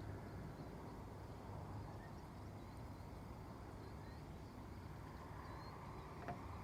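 Faint, steady low rumble of outdoor background noise on the water, with faint bird chirps.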